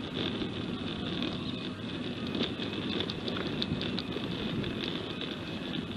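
Steady outdoor background noise with irregular faint crackles and ticks.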